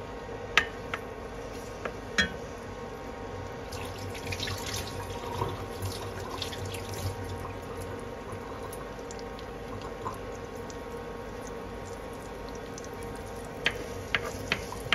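Chopped garlic frying gently in oil in a nonstick wok, a soft sizzle with scattered crackles, over a steady hum. Sharp clicks near the start and three quick taps near the end as a wooden spatula knocks against the pan.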